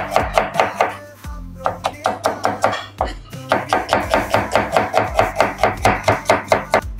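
Chef's knife slicing an onion on a plastic cutting board in quick, even strokes, about five a second. The strokes pause briefly about a second in and again near the three-second mark.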